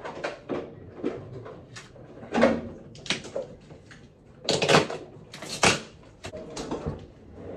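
Irregular knocks, clatters and scrapes of household things being handled, like cupboard doors and objects being moved and set down. The loudest come about two and a half seconds in and again a little after the middle.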